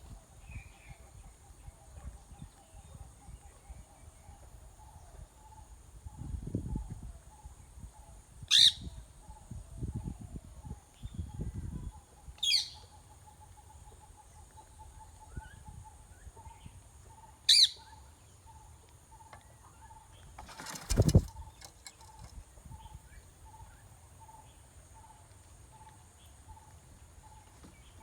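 Three short, sharp calls from rose-ringed parakeet chicks, several seconds apart, with low thuds and rustles in between, the loudest near the end. A steady faint high drone runs underneath.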